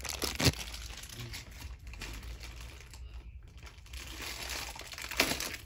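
Clear plastic parts bag crinkling as it is handled and opened. There is a sharp click about half a second in and another near the end.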